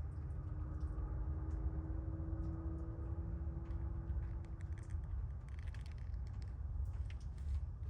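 Young kittens moving about, with small scratchy ticks and rustles that grow busier after a few seconds. Under them runs a steady low rumble, with a faint steady hum in the first half.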